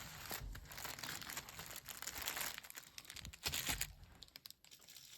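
Faint crinkling and rustling of a firecracker brick's paper wrapping as it is handled, a little louder about three and a half seconds in.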